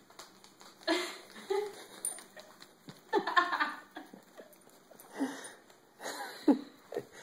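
People laughing in short, breathy bursts, several of them falling in pitch, with the longest run of laughter a little after the middle.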